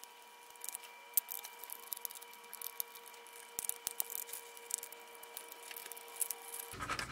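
Scattered small clicks and taps of plastic parts being handled as a Samsung Gear VR headset's housing is unscrewed and taken apart, over a faint steady electrical whine that changes to a lower hum near the end.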